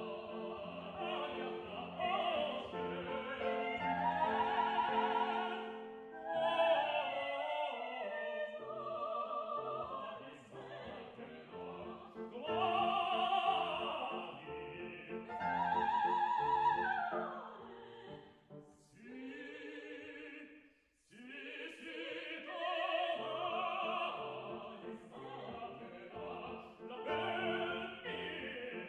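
Operatic tenor singing with grand piano accompaniment, the sung phrases carrying a wide vibrato. The music breaks off briefly about twenty seconds in, then picks up again.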